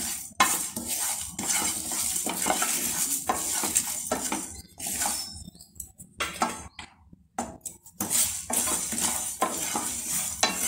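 Wooden spatula scraping across a pan and stirring whole spices (coriander seeds, bay leaves, dried red chillies) as they dry-roast with no oil. It moves in repeated strokes about twice a second and pauses briefly midway.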